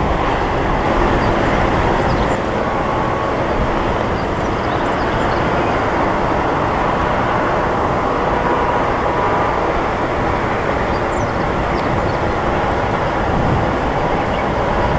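Boeing 747-400 freighter's four jet engines running with a steady roar as the jumbo taxis after landing.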